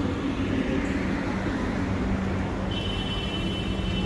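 City street ambience at night: a steady low traffic hum with a constant mechanical drone, joined about three seconds in by a faint high-pitched whine.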